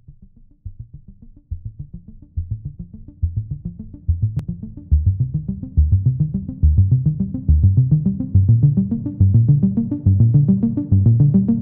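Electronic background music: a pulsing synthesizer bass line in quick repeating notes, fading in from quiet and growing steadily louder.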